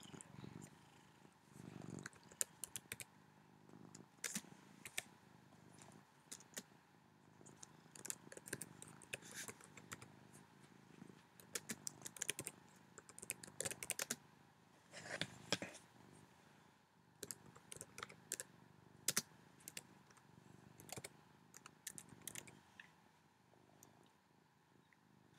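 Fingers typing on a computer keyboard, a faint run of irregular key clicks, over the low, soft rumble of a cat purring close by.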